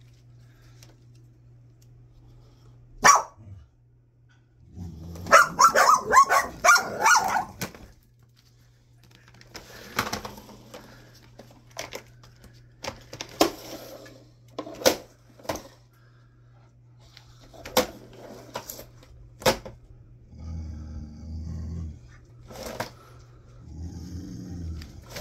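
Pit bull dogs barking: one sharp bark, then a quick run of barks, then scattered single barks, giving way to lower, longer sounds near the end. A steady low hum runs underneath.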